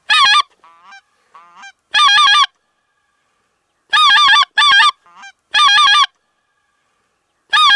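Goose calling: about six loud bursts of three or four quick, wavering honks, one to two seconds apart, with fainter honks in the gaps between them.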